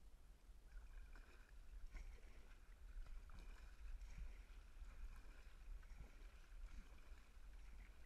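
Faint kayak paddle strokes in calm water, muffled by a waterproof camera housing, over a low rumble, with faint steady high tones in the background.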